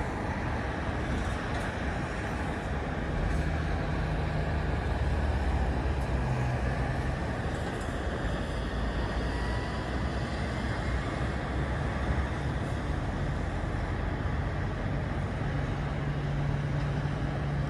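Steady, distant rumble and hiss of motorway traffic, with a low engine hum from heavier vehicles swelling twice.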